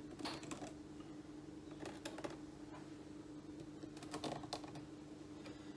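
A pen scratching and tapping on a white nylon chopping-board pad as it marks round metal leg supports, in faint, irregular clusters of small clicks.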